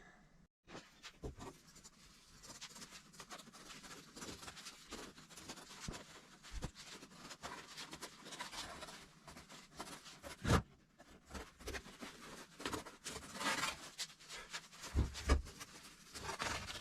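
Irregular scratching and rustling of hand work on fabric being fitted over a foam seat, with a few dull knocks.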